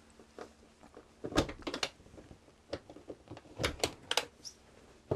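Wooden engine-compartment panel being unlatched by its brass flush pulls and lifted away: a scatter of light clicks and knocks of wood and hardware, about a dozen over a few seconds, in clusters.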